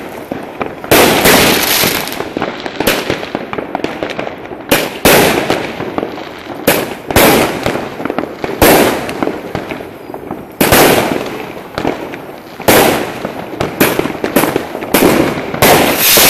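Fireworks going off: a series of sharp bangs, about one every second or two, each trailing off over about a second.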